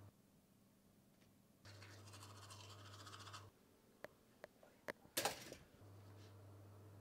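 A manual toothbrush scrubbing teeth, a soft scratchy brushing for a couple of seconds over a faint low hum. Then a few small clicks and one louder clack from a pop-up toaster's lever mechanism.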